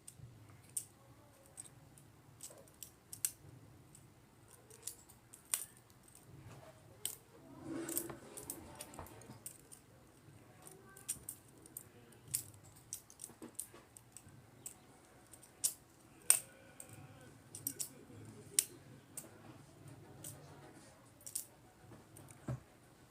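Butterfly knife trainer being flipped: sharp metallic clicks and clacks as the handles swing around and snap against the blade, coming irregularly about one or two a second.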